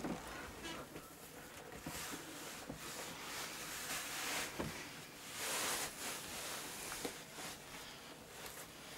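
Rustling and rubbing of a one-piece leather motorcycle suit being pulled up over a Lycra bodysuit, with a few soft knocks and a louder swish about five seconds in.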